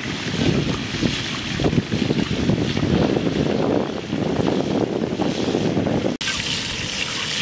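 Wind buffeting the microphone in gusts over the wash of the sea. It cuts off sharply about six seconds in and is replaced by a steadier hiss.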